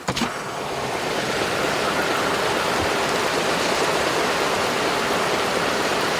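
Steady rushing of floodwater running along a flooded street like a river, building slightly over the first second.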